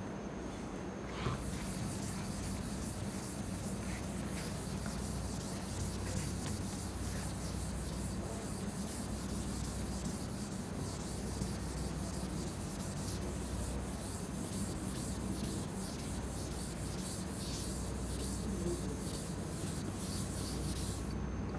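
Board duster being rubbed back and forth across a chalkboard, erasing it: a steady scrubbing of many quick strokes that starts about a second in and stops just before the end, over a low steady hum.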